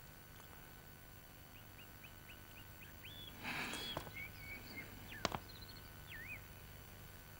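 Faint small birds chirping, a string of short chirps with quick pitch glides. A brief hissing rustle comes about three and a half seconds in, and a single sharp click a little after five seconds.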